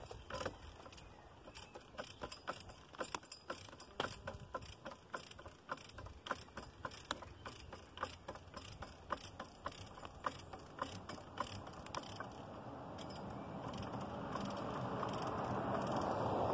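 Ratchet pawl of a hand-worked tree jack clicking in quick runs, several clicks a second, as the lever is pumped against a heavy log. Over the last few seconds the clicks thin out and a broad rushing noise swells up and grows louder.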